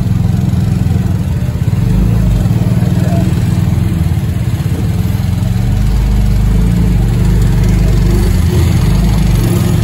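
Motorcycle engines of three-wheeled loaders running steadily as they drive through shallow floodwater, with water splashing.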